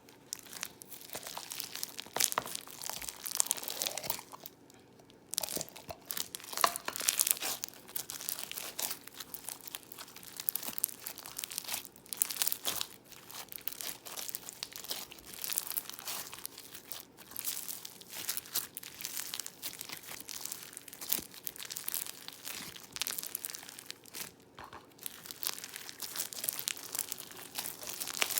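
Crunchy floam slime being squeezed and worked by hand, giving a dense run of crackling crunches and bubble pops, with a brief pause about four seconds in.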